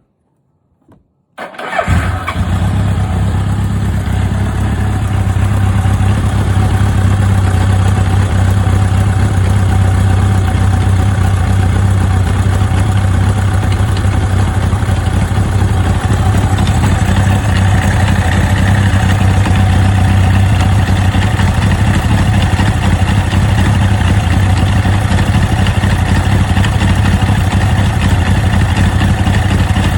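Suzuki GSX1100S Katana's air-cooled inline-four engine started up about a second and a half in, catching almost at once and then idling steadily. The idle carries an abnormal mechanical noise that the owner suspects may come from a loose clutch center nut.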